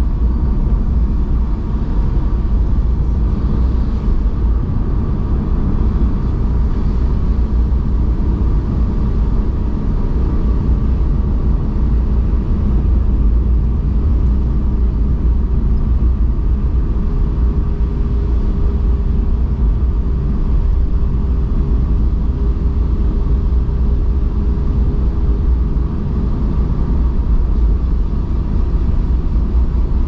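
A car driving steadily along a paved road: a continuous low rumble of tyres and engine, with a faint steady hum joining about halfway through.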